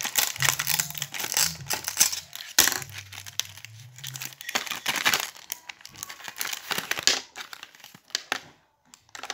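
Packaging crinkling and tearing as it is opened by hand, a dense run of sharp crackles that thins out near the end.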